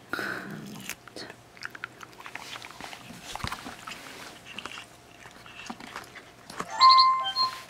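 A cat and a dachshund chewing pieces of dried meat jerky, with many small irregular crunches and bites. About seven seconds in, there is a brief high-pitched squeal, the loudest sound.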